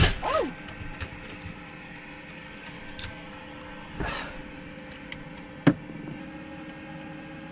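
Diesel air heater running with a steady hum inside a small cabin. Someone moving about gives a burst of rustling and knocks at the start, a knock about 4 seconds in and a sharp click near 6 seconds.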